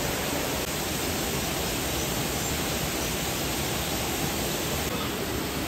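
Steady rush of running water from the exhibit's waterfall or stream, an even hiss with no breaks.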